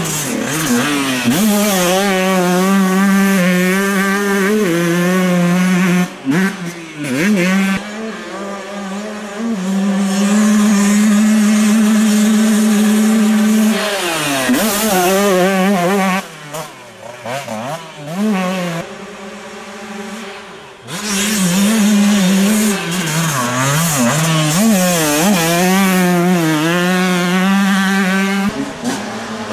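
Two-stroke motocross bike engines, among them a Honda CR125, revving hard as riders pass and jump, the pitch holding at full throttle, then rising and falling with throttle blips and gear changes. The engines fade into a quieter lull about halfway through, then come back loud near the end.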